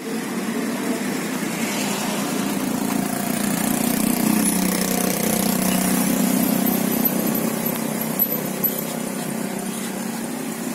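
Steady hum of an idling engine, with a few light clicks in the second half.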